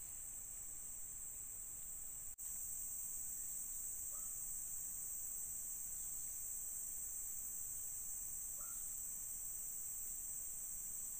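Steady high-pitched chorus of insects, a continuous shrill drone, with two faint short chirps and a momentary cut in the sound about two seconds in.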